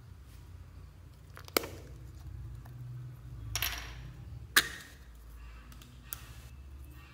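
Small plastic slime container being handled and opened: two sharp clicks of the plastic lid, about a second and a half and four and a half seconds in, with a short scraping rustle just before the second, over a low steady hum.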